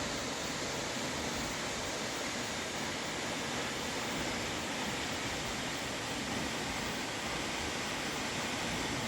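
Steady rushing roar of water falling down a tall waterfall, the 74-metre Mount Damper Falls.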